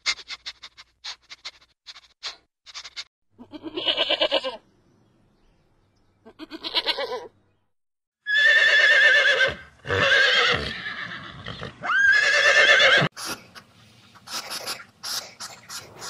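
Horses whinnying: three loud calls with a wavering pitch over about five seconds, one opening with a sharp upward sweep, preceded by two shorter pulsed calls. Short crisp clicks run through the first few seconds and again near the end.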